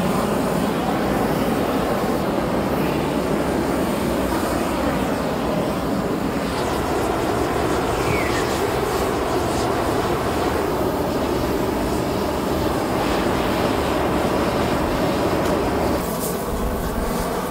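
Steady rushing noise of gas burners in a glassblowing hot shop: the hand torches and glory hole firing, with the shop's ventilation. The tone shifts slightly near the end.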